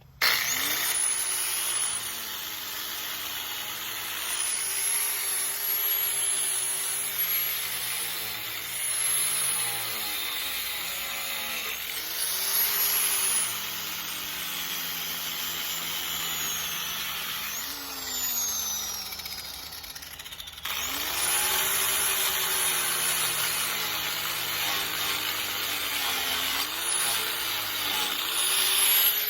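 Angle grinder grinding paint off steel door hinges, starting abruptly, its whine rising and sagging in pitch as it bites under load. About 18 seconds in, it is let off and winds down, then is started again a couple of seconds later.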